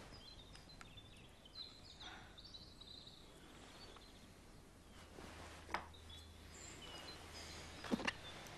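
Faint room tone in a quiet room, with faint birdsong from outside in the first few seconds. A soft click of small objects being handled comes near the middle, and two more near the end.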